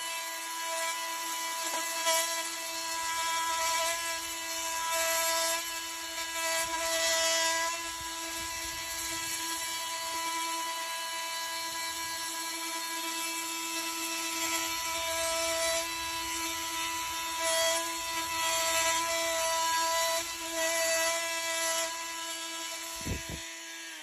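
Oscillating multi-tool with a plunge-cut blade cutting a section out of a timber door frame: a steady high-pitched buzz that swells and dips as the blade bites. It stops about a second before the end.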